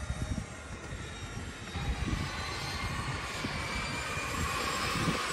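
Aircraft engine drone that grows louder and rises slightly in pitch over the last three seconds, with wind gusting on the microphone.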